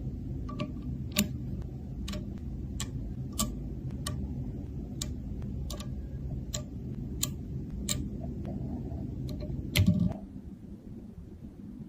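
A series of light, sharp clicks, slightly uneven, roughly three every two seconds, over a low steady hum, with a soft thump near the end after which the clicks stop.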